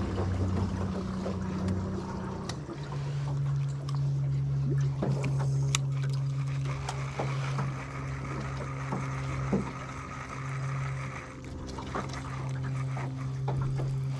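Small boat motor running steadily with an even hum that steps up in pitch about two and a half seconds in, as the boat moves along the bank. Small clicks and knocks from the rod and reel being worked sound over it.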